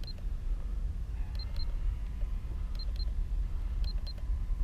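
Short high electronic beeps in quick pairs, four pairs about a second and a half apart, over a steady low rumble.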